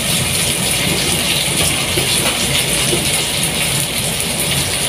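Steady crackling, hissing noise over a low hum, without a break.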